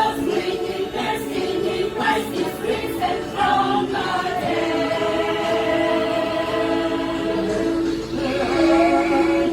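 Choir singing in harmony, holding a long chord through the middle of the passage, then dipping briefly and rising into another held chord near the end.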